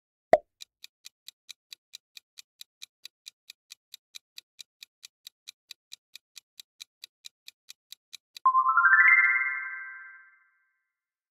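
Quiz-show sound effects: a sharp click, then a countdown timer ticking about four times a second for roughly eight seconds. The ticking ends in a bright rising chime that fades out, the cue that time is up and the answer is revealed.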